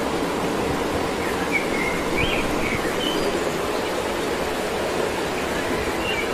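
Steady rushing outdoor noise, even in level throughout, with a few faint bird chirps in the first half and one more near the end.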